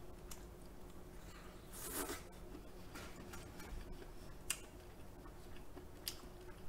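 Faint eating sounds: king crab meat being chewed and handled with gloved fingers. A few small clicks and a short rustle about two seconds in.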